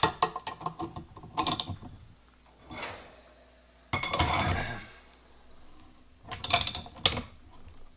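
Ratchet wrench clicking in short bursts with pauses between as it tightens the forcing screw of a three-jaw puller, drawing a bearing race off a differential carrier.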